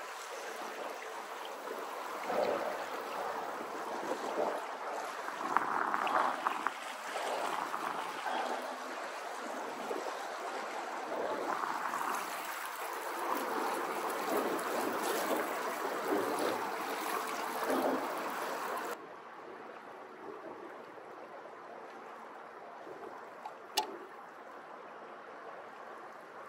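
Choppy water splashing and slapping against the hull of a small plastic boat running under an electric trolling motor, with a faint steady hum under the splashing. About two-thirds of the way through, the sound drops suddenly to quieter water lapping, with a single sharp click near the end.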